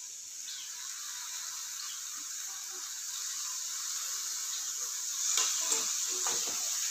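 Raw chicken pieces sizzling as they go into a hot iron pan of fried shallots and spices, the sizzle growing steadily louder, with a metal spoon scraping and stirring the pan near the end.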